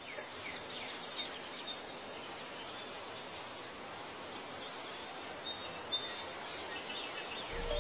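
Steady background hiss with a few faint bird-like chirps in the first couple of seconds. A chiming melody of rising notes starts just at the end.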